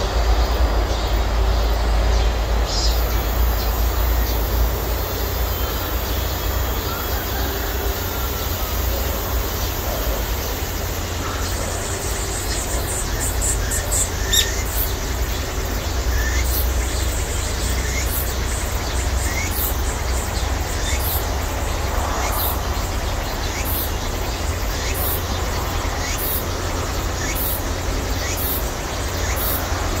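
Cicadas buzzing, a high steady sound that turns about eleven seconds in into a pulsing call repeating roughly once a second. A few bird chirps and a steady low rumble sit underneath.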